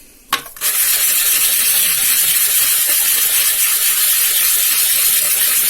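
Acrylic ring blank being sanded flat against an abrasive surface, a steady, even hiss of abrasion that starts about half a second in, just after a brief click.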